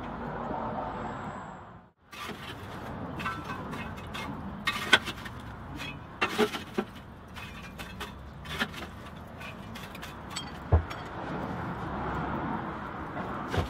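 Lumps of charcoal clinking and scraping in a small forge as glowing coals are shifted with a poker and tongs, a handful of separate sharp clinks over a steady rushing noise. A steady noise before it cuts off abruptly about two seconds in.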